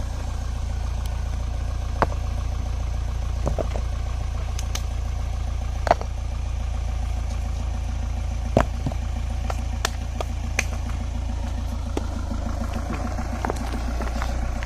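A 4x4 jeep's engine running steadily at low speed, a deep even hum, with a few sharp clicks or knocks scattered through it.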